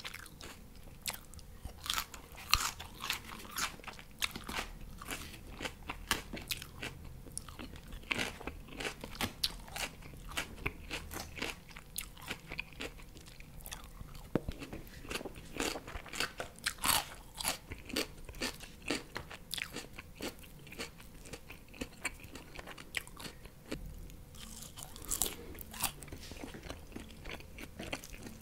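Close-miked crunchy chewing and biting of crisp salad lettuce, a dense run of sharp crunches with wet mouth sounds.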